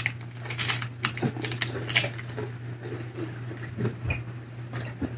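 Children eating tacos: scattered short clicks and crackles of biting and chewing taco shells and tortillas, busiest in the first two seconds, over a steady low hum.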